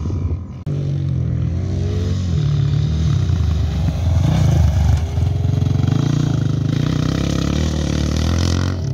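Off-road motorcycle engine revving hard as a dirt bike accelerates along a dirt track, its pitch climbing and falling with the throttle. It gets suddenly louder about a second in.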